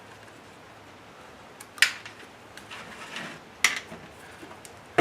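Car radio's sheet-metal casing being handled during disassembly: two sharp clacks about two and three and a half seconds in, with some scraping between them.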